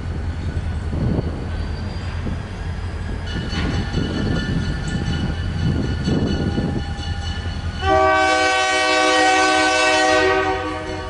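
An approaching EMD GP30 diesel locomotive rumbles, with wind gusting on the microphone, and its air horn sounds faintly from about three seconds in. About eight seconds in the horn gives one loud, long chord of roughly two and a half seconds, then fades.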